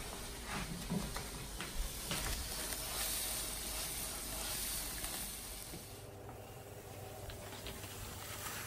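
Grilled cheese sandwiches sizzling in a frying pan, with a few light scrapes and taps of a slotted spatula as they are pressed and turned.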